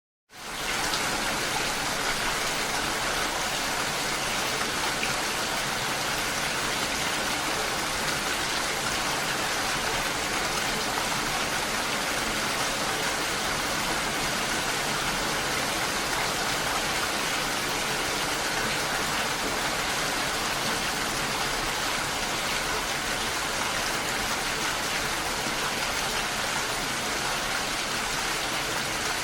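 Steady rain falling, an even hiss that fades in over about the first second and then holds level.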